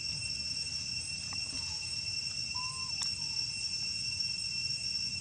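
Steady, high-pitched drone of an insect chorus, with a low rumble beneath it and a single short click about three seconds in.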